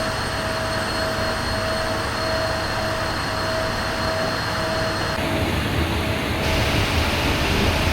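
Machine-shop machinery running steadily: a broad, even noise with a thin, steady whine over it. The sound changes slightly about five seconds in.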